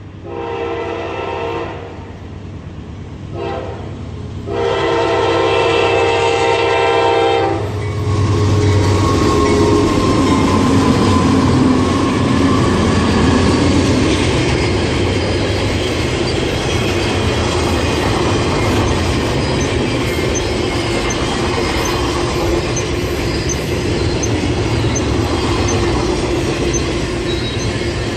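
Locomotive air horn sounding a chord in three blasts, long, short, then longer, followed by the train passing close by: a low engine drone and the steady rolling and clacking of wheels on the rails.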